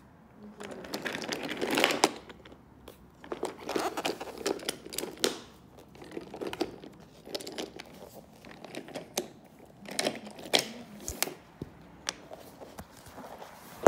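Irregular rustling and crinkling handling noise in several clusters with sharp clicks among them, as the camera is moved around and rubbed.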